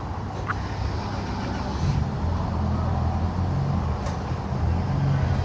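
Off-road 4x4 vehicle engine running steadily.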